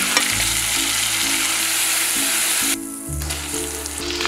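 Pork pieces sizzling in hot olive oil in an enameled cast-iron pot as a spatula stirs them. About two and a half seconds in the sizzle breaks off and comes back more quietly as sliced vegetables sauté in the same pot. Background music plays underneath.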